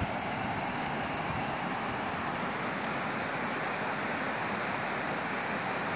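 Fast-flowing river running over rapids: a steady, even rush of water.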